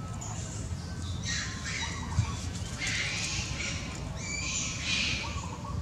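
Four harsh, raspy screeching animal calls in a row, each lasting about a second, over a steady low rumble.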